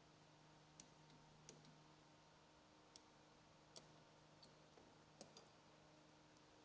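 Near silence broken by five faint clicks of a wrench with a 13/16" crowfoot, spaced unevenly, as snowmobile spark plugs are tightened to torque.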